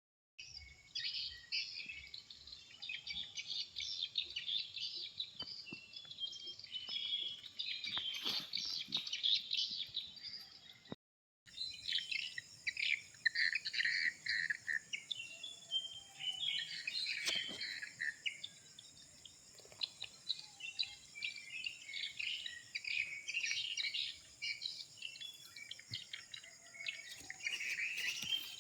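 A morning chorus of many birds chirping and singing together in quick, overlapping high calls, with insects in the mix. The sound drops out briefly about eleven seconds in, then the chorus resumes.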